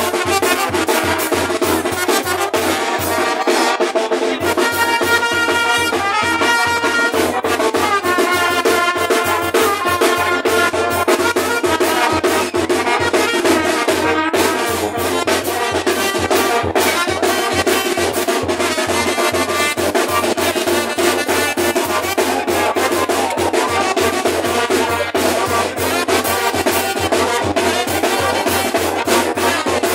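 Loud brass band music with a steady drum beat, playing continuously for a carnival dance procession.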